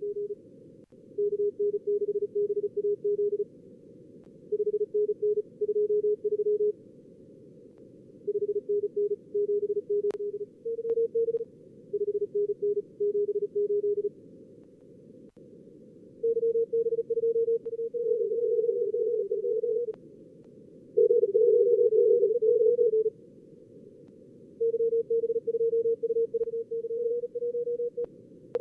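Fast Morse code (CW) in tones around 400–500 Hz, from a contest-practice simulator working a pileup of simulated callers and the operator's own sent exchanges. It comes in runs of a few seconds with short pauses, sometimes two signals at slightly different pitches overlapping, over faint narrow-filtered receiver hiss.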